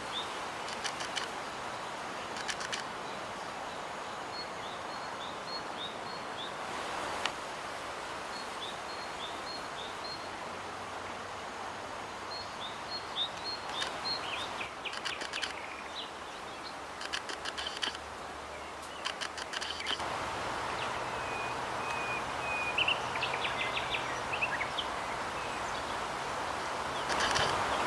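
Small birds chirping with short, high, repeated notes and quick trills over a steady outdoor background hiss. About two-thirds of the way through, the background changes and a faint low hum comes in.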